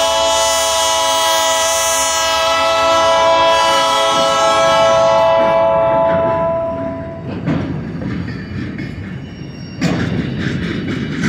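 Diesel locomotive air horn sounding one long, loud blast that cuts off about six and a half seconds in. After it, empty flatcars roll past with a steady rumble of wheels on rail and sharp clanks, the loudest about seven and a half and ten seconds in.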